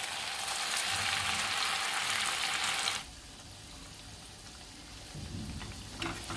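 Sabudana (sago pearl) fritters sizzling as they deep-fry in hot oil. The sizzle drops abruptly to a softer level about three seconds in, with a light click near the end.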